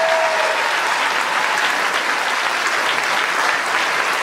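Audience and people on stage applauding, many hands clapping steadily.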